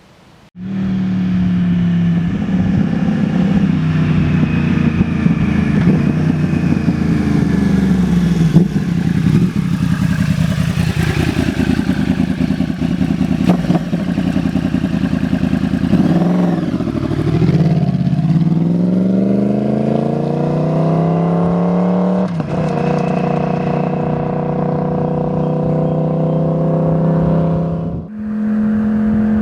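2009 Yamaha R1's crossplane inline-four, through a loud Toce T-Slash slip-on exhaust, running under throttle with its pitch falling and climbing as it is ridden. There is a deep dip around the middle, a long rising pull after it, and a sudden drop in pitch later on.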